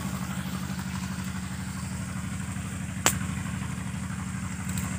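An engine running steadily at idle, a low even hum, with one sharp click about three seconds in.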